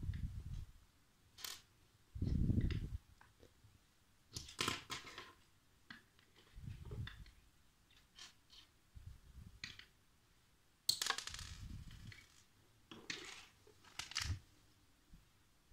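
Small plastic LEGO pieces being handled and pressed together: scattered irregular clicks and rattles, with several dull low thumps of handling close to the microphone.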